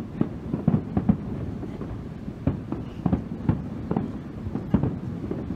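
Aerial firework shells bursting in quick, irregular succession, sometimes several bangs a second, over a low continuous rumble.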